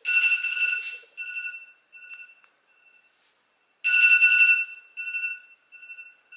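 A high electronic ringing tone, like a phone or alarm ring, sounds twice, about four seconds apart. Each ring starts sharply and trails off in fading repeats.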